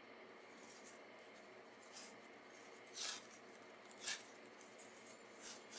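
Faint, brief rustles of a white foam wrapping sleeve being handled and pulled off a rifle scope's sunshade: a few soft scrapes about two, three and four seconds in, the one near three seconds the loudest.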